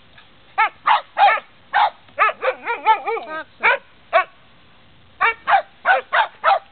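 Small white fluffy dog barking in quick, sharp, repeated barks, about fifteen in all. Two to three and a half seconds in the barks run together into wavering yips that bend up and down in pitch. There is a pause of about a second before a last fast run of barks.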